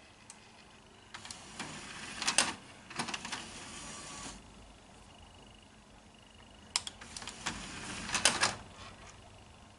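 Disc tray mechanism of a Samsung DVD home cinema unit, whirring and clicking as a disc is loaded. It comes in two bursts: one starting about a second in and lasting some three seconds, and a shorter one about seven seconds in.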